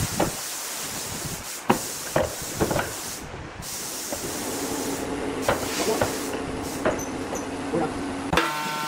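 Wooden boards being set down and shifted across metal pipe clamps on a workbench: a series of sharp wooden knocks and clatters over a steady hiss, with a low hum joining about halfway through.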